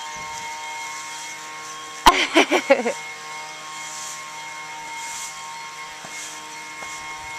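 A steady hum of several fixed tones throughout. About two seconds in, a young child gives a short high squeal with wavering pitch, lasting under a second.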